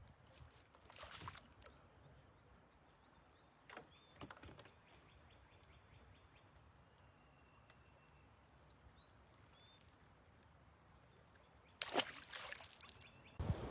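Quiet open-air ambience with faint, scattered bird chirps and whistles. A few soft knocks, and a louder short clatter of knocks near the end.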